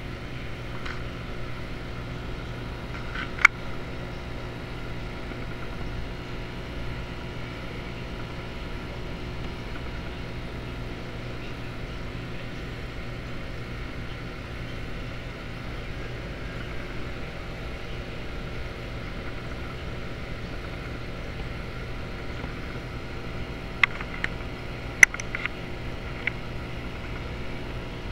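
Steady hum and hiss of aquarium equipment running, with a single sharp click about three seconds in and a few more clicks near the end.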